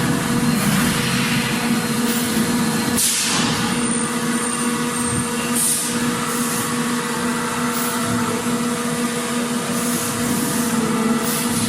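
Factory machinery running: a steady droning hum with a low tone, broken every few seconds by short bursts of hissing.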